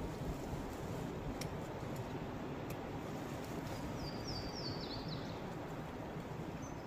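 Outdoor woodland ambience: a steady low rush of background noise, with a songbird singing a quick run of high, falling notes about four seconds in and again near the end.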